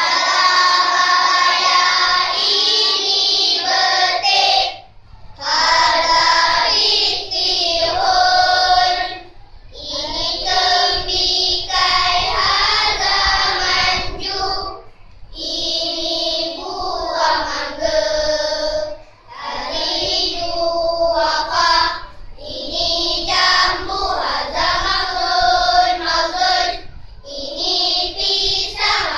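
A class of young primary schoolchildren singing together in unison in Arabic, line by line with short pauses between phrases.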